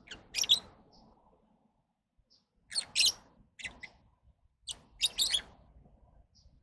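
Lovebirds giving short, shrill chirps in four quick clusters, with a few faint single chirps between.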